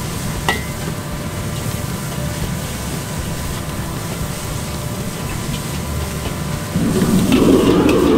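Gas wok burner rushing steadily under a steel wok while rice noodles sizzle, with a metal ladle clinking against the wok about half a second in. Near the end the burner noise swells much louder for about two seconds as the wok is tipped up off the flame.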